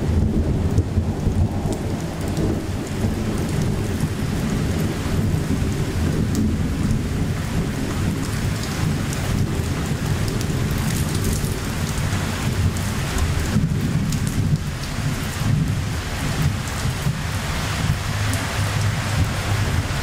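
Summer rain falling steadily, with fine drop ticks over a continuous low rumble of the storm.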